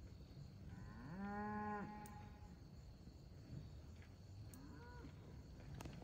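Cattle mooing: one moo of about a second, starting about a second in, then a shorter, fainter moo near five seconds.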